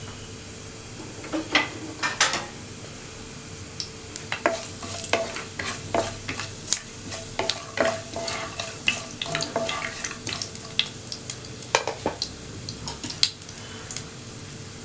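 Wooden spoon stirring whole spices (cumin, fennel, cinnamon, cloves, cardamom) in hot oil in a nonstick pan. Irregular sharp clicks and taps against the pan, with the spices sizzling in the oil.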